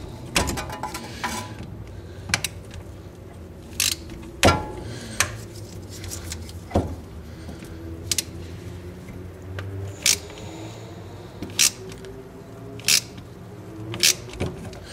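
A 3/8-inch ratchet and 17 mm socket turning a rear brake caliper piston tool, screwing the piston back into a caliper with a built-in parking-brake mechanism. About a dozen sharp, irregularly spaced metallic clicks and clinks from the ratchet and tool, over a low hum.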